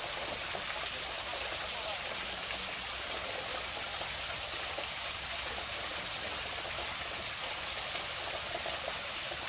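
Small waterfall splashing steadily over rocks.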